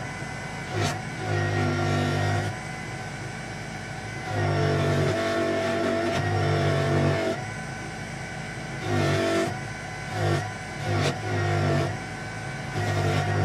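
Proxxon electric polisher running with a buffing wheel while a steel knife blade is pressed against it to buff it to a mirror finish. The motor's steady whine grows louder in repeated spells of a second or more as the blade is worked on the wheel.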